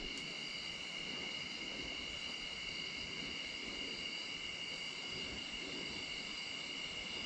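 Evening chorus of crickets and other insects: a steady, unbroken high-pitched trilling.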